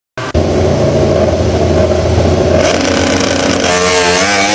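Ducati MotoGP race bike's engine running steadily at low revs, then revving up and down with a rising and falling pitch from about three and a half seconds in.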